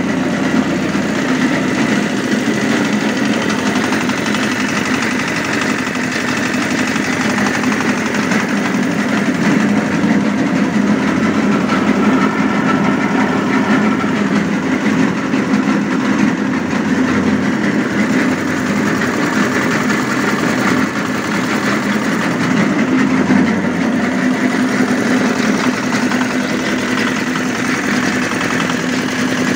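Small horizontal single-cylinder diesel engine running steadily, turning an areca nut splitting machine through a V-belt and chain drive.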